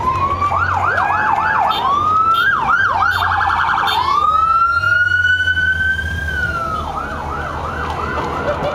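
Police motorcycle sirens passing close by. They switch from a yelp to a brief rapid warble, then to one long wail that rises and falls away, and go back to a yelp near the end, with a low engine rumble underneath.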